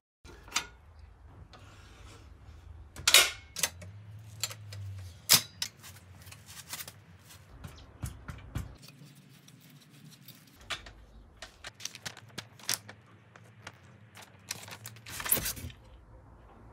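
Irregular metallic clicks, clanks and knocks as the folding steel leg stand of an Einhell TE-CC 250 UF table saw is unfolded and handled. Louder clanks come about three, five and fifteen seconds in.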